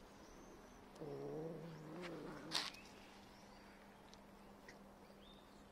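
A stray cat's drawn-out, wavering low yowl lasting about a second and a half, ending in a short sharp noisy burst that is the loudest moment.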